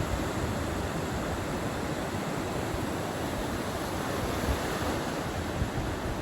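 Ocean surf breaking in a steady wash of noise, with wind.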